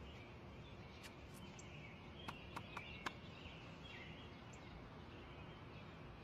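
Faint outdoor ambience with birds chirping, and four quick light clicks a little over two seconds in.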